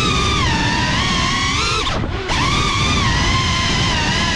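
Electric motors and propellers of a Geprc Cinelog 35 FPV cinewhoop quadcopter whining, the pitch sliding up and down with the throttle over a rush of air. The whine cuts out for a moment about two seconds in as the throttle is chopped, then spools straight back up.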